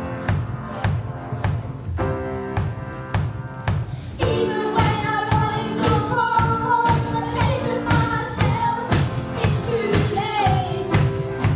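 Live band playing a pop song: piano chords over a steady beat, and about four seconds in two boys start singing into microphones.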